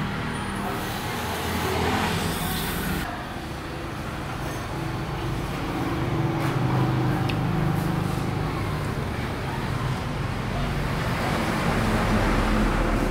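A motor vehicle engine running with shifting pitch, over steady road traffic noise.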